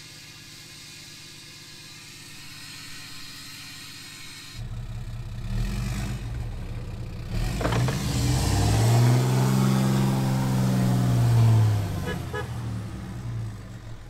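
A vehicle engine idling faintly, then a much louder engine running under load. It revs up and back down over a couple of seconds as a pickup stuck in snow is pulled out on a tow rope.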